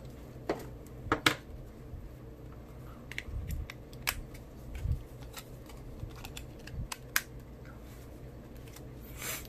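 Scattered light plastic clicks and taps as a battery and battery cover are fitted into an LG AX4270 flip phone and the phone is handled, with a short rustle near the end.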